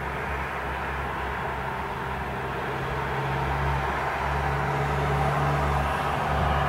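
Steady low engine hum of road traffic, growing a little louder after about three seconds.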